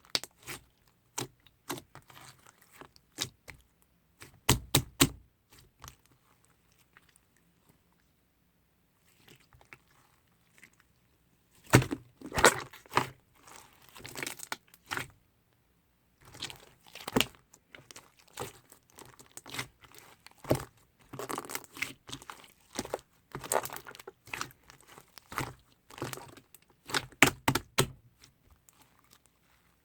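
Mango smoothie and whipped cream slime being squished and stretched by hand, making bursts of sticky clicks and pops with a few short pauses.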